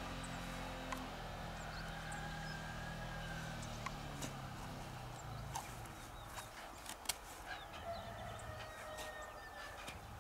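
Sharp, scattered clicks of a knife and fingers against freshwater mussel shells as the mussels are worked open, thickest in the second half. Two faint drawn-out animal calls sound in the background.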